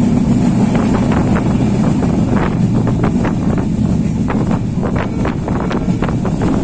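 Passenger train running at speed, heard from inside the carriage by an open window: a steady rumble of the wheels and carriage, with irregular clicks and rattles, and wind buffeting the microphone.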